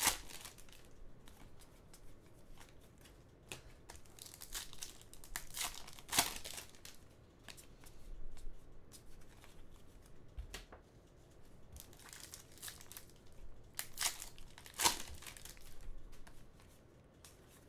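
Shiny wrappers of 2013-14 Panini Contenders hockey card packs being torn open and crinkled by hand: irregular crackling, with a few sharper rips.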